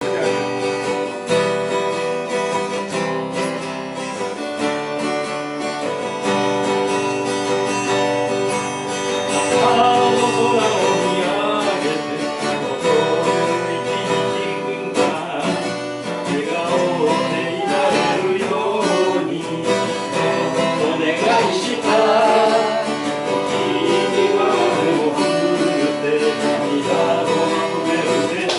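Music: an acoustic guitar playing a gentle accompaniment, with a sung melody coming in about ten seconds in.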